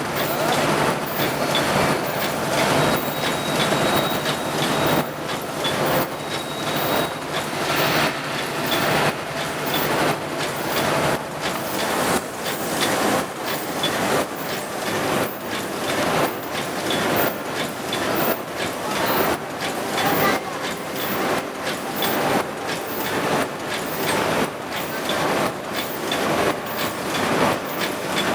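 Paper cup forming machine running, making a loud, steady, rhythmic mechanical clatter of repeated knocks.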